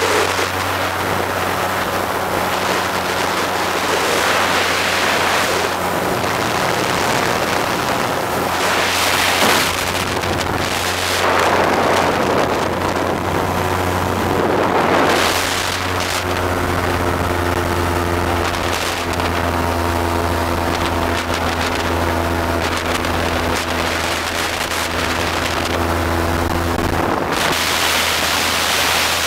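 Motorboat engine running at a steady drone, with wind buffeting the microphone in repeated rushing gusts.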